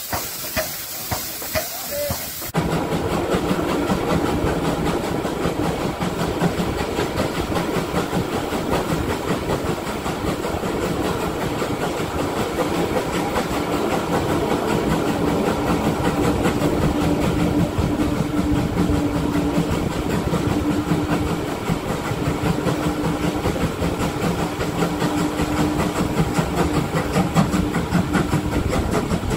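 Steam hissing loudly from a standing steam locomotive, with regular puffs, cuts suddenly to the running noise of a passenger coach in a steam-hauled train: wheels rumbling and clattering on the track, with a steady tone through much of the second half.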